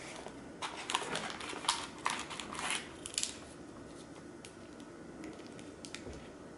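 Rustling and clicking of a smartphone box's paperwork and small packets being handled and lifted out, in a run of short bursts during the first half, then a few light ticks.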